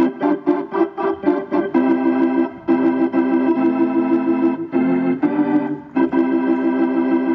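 Organ playing chords. The first second and a half or so is a run of quick staccato stabs, about five a second. After that come held chords with a fast, wavering pulse, broken by a few short breaks.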